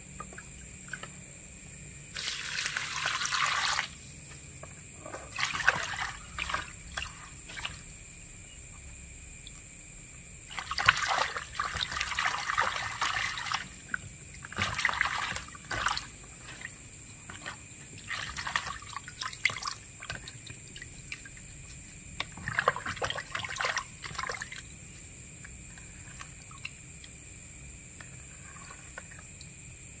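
Hands swishing leafy herbs and chillies through a plastic basin of water, splashing and trickling in about half a dozen bursts of a second or two, with lulls in between.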